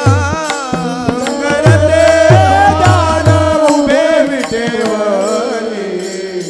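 Devotional kirtan music: a wavering melody over steady held notes. Deep hand-drum strokes fall in pitch with each stroke and stop a little past halfway.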